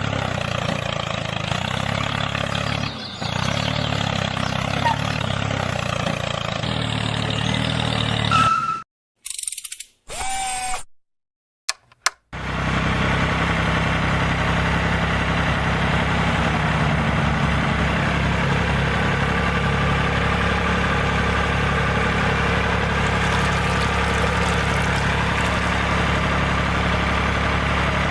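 Tractor engine idling steadily with an even low chug. It cuts out abruptly a few times about a third of the way in, then runs on steadily.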